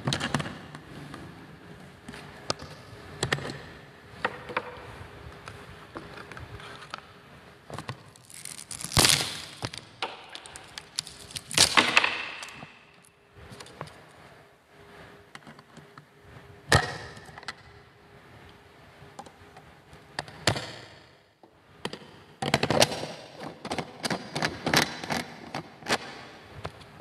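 Irregular knocks, clicks and crackling. They bunch into louder clusters about nine and twelve seconds in and again near the end, with single sharp knocks in between.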